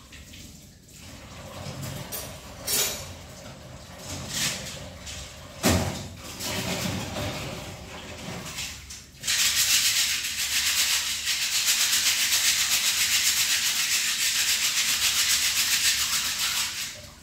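Washing up at a kitchen sink: dishes clink and knock a few times, then about nine seconds in, a fast, even scrubbing starts and goes on for about seven seconds before stopping near the end.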